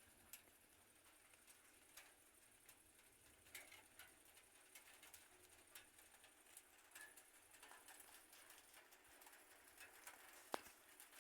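Near silence, broken by faint, scattered ticks and taps at irregular intervals, with one sharper click about ten and a half seconds in.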